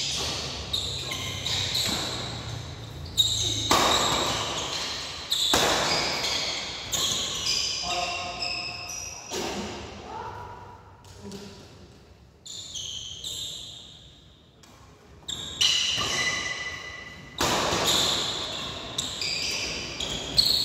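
Badminton doubles rally: sharp racket strikes on the shuttlecock, echoing in the hall, with shoes squeaking on the court floor. Play stops for a quieter lull in the middle, then the strikes start again.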